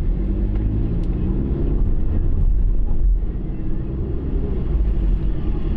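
Car cabin noise while driving slowly: a steady low rumble of engine and road heard from inside the car.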